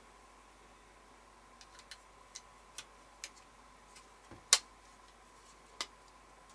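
Hard plastic clicks from a Synology DS220+ tool-less drive tray being snapped onto a 3.5-inch WD Red hard drive: a run of light clicks, then one loud snap about four and a half seconds in and another near the end.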